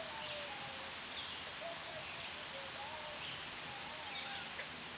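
Birds chirping and whistling in short calls over a steady hiss of outdoor background noise.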